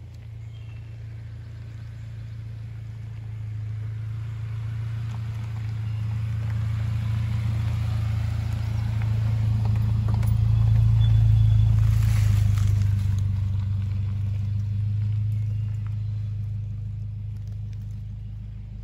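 2013 Subaru Outback driving past on a dirt track: its engine and tyres grow louder as it approaches, are loudest as it goes by about eleven seconds in, then fade as it drives away.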